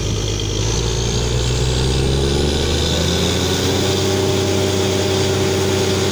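Engine of a truck-mounted borehole drilling rig revving up over the first few seconds, then running steadily at the higher speed while the rig drills.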